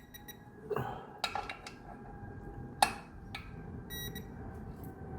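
Metal clinks and clicks of a wrench and socket on the clutch pressure-plate bolts as each is re-tightened in turn, the sharpest about three seconds in. Two short high beeps sound, one right at the start and one about four seconds in.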